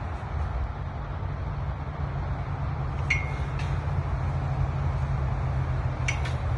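A few sharp metallic clinks from a chain-link fence gate and its latch being handled, one about three seconds in that rings briefly and two more near the end, over a steady low rumble.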